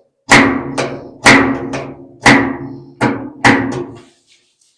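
Steel door of a 1955 Chevrolet pickup being pushed shut again and again: about seven hollow metal bangs, mostly in pairs about half a second apart, each ringing briefly through the door panel. The door is closing tight because the new handle's linkage catches on the door latch mechanism.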